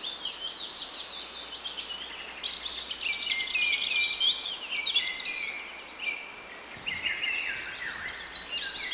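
Songbirds singing together in a busy chorus of overlapping high chirps and trills, thinning briefly about two-thirds through before picking up again.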